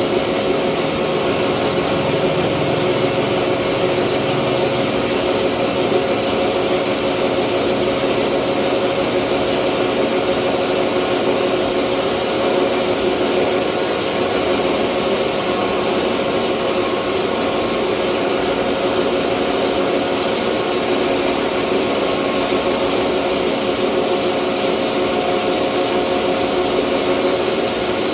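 Rice mill running steadily while milling rice: a loud, even machine noise with a constant hum.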